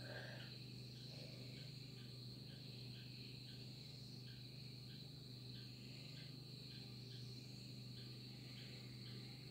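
Night insects, crickets, chirping: a steady high trill with a quieter chirp repeating about three times a second, over a low steady hum.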